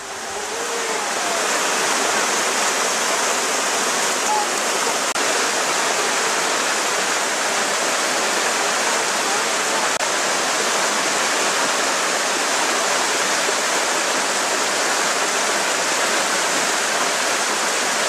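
Steady rush of water cascading over rocks in a small stream, fading in over the first couple of seconds.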